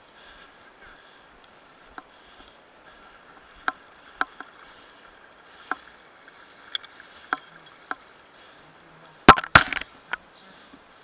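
Sharp knocks and bumps of a hand-held or body-worn camera being jostled as its wearer moves, about a dozen spread irregularly, with a loud double bump about nine seconds in, over a faint steady hum.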